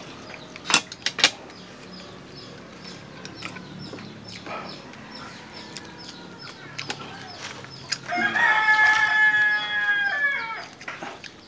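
A rooster crowing once: a single drawn-out cock-a-doodle-doo of over two seconds, about eight seconds in, the loudest sound here. About a second in there are two sharp clicks.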